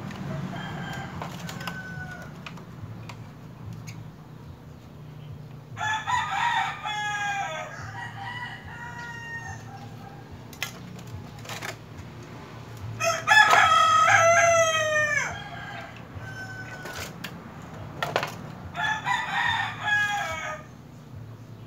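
A rooster crowing three times, about six, thirteen and eighteen seconds in, the middle crow the longest and loudest. Light clicks and taps of chrome trim being pressed into a plastic car grille come in between.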